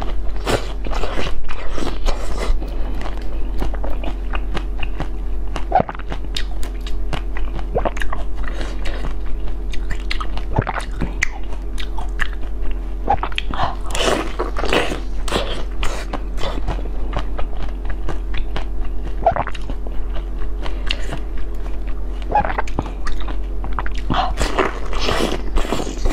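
Close-miked person biting and chewing a crunchy pink food, with many crisp crunches and wet mouth sounds coming in irregular clusters. A steady low hum runs underneath.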